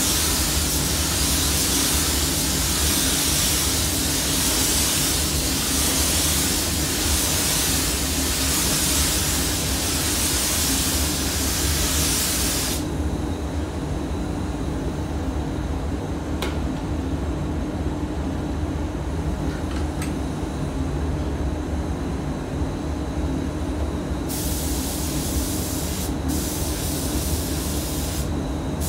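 DeVilbiss DV1 compressed-air spray gun hissing as it sprays clearcoat. It stops a little before halfway, then starts again near the end in short bursts. A steady low drone of spray-booth ventilation runs underneath.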